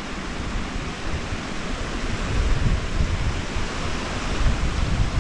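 Mountain stream rushing steadily, with wind buffeting the microphone in gusts that grow stronger about two seconds in.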